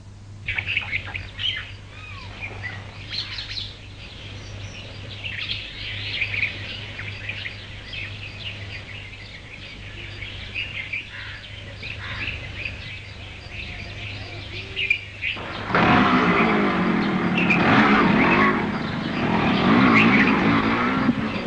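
Birds chirping steadily, then about three-quarters of the way in a small motorcycle engine starts up loudly and runs, its pitch rising and falling as it is revved.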